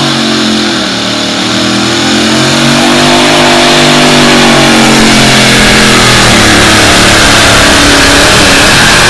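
Supercharged pulling-truck engine held wide open as it drags a weight-transfer sled. Very loud, with a wavering pitch, it grows louder over the first few seconds as the truck draws near, then holds steady.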